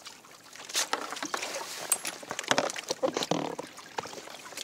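Water splashing and sloshing at the side of a kayak as a sea bass is held in the water and released by hand, in irregular splashes that are loudest midway.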